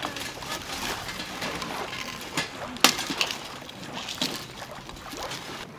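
Wood fire crackling in a metal fire pit, with irregular snaps and pops over a steady hiss and one sharp pop about three seconds in.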